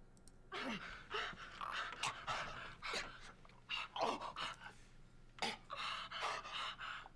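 Heavy, ragged panting breaths, one after another, with short gasping catches, quieter than the talk around them.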